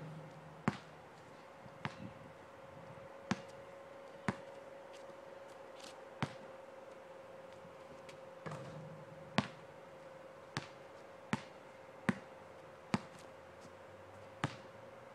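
Basketball bouncing on an outdoor asphalt court: a dozen single sharp bounces at irregular spacing of roughly a second, over a faint steady tone.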